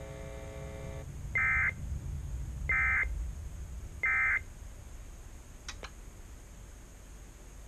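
NOAA Weather Radio SAME End of Message data bursts: three short, identical electronic buzzes about a second and a half apart, marking the end of the weekly test alert. A couple of faint clicks follow.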